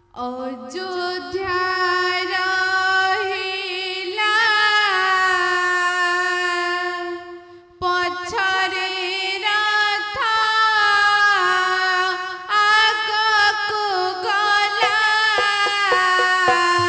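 A girl's high singing voice holding long, ornamented notes in a slow melody, breaking off about seven and a half seconds in and starting again a moment later.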